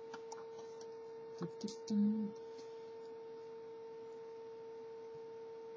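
Steady electrical hum, with a few faint ticks and taps and a brief low murmur about two seconds in.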